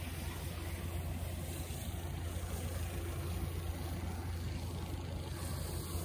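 A small snowplow's engine running steadily as it clears the street, over a low, even rumble.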